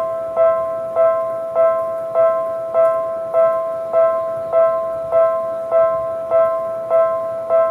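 Railway level-crossing warning bell ringing in a steady, even rhythm of about five strikes every three seconds, each strike a ringing tone that fades before the next. It is the signal that the crossing is closed for an approaching train.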